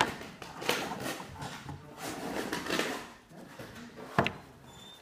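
Irregular scraping strokes across a drawing on paper, each about half a second long, as the artist scrapes over the drawn texture; a single sharp click about four seconds in.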